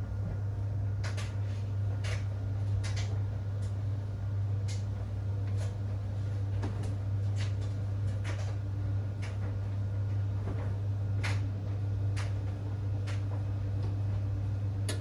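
Whirlpool 3RLSQ8033SWD top-loading washing machine running, with a steady low motor hum and scattered irregular clicks and ticks.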